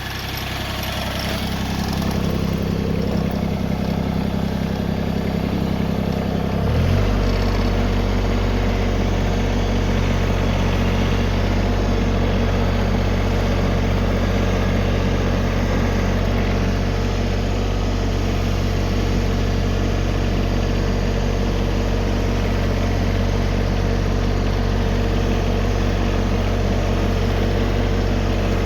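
Tractor engine running steadily; about seven seconds in its note changes abruptly to a deeper, slightly louder hum.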